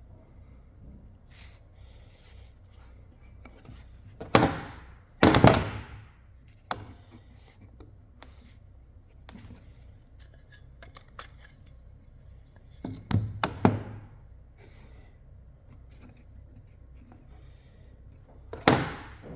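Wooden workpieces being knocked and handled: loud sharp knocks in pairs about four and thirteen seconds in, and a single one near the end, each ringing briefly, with small clicks and taps in between.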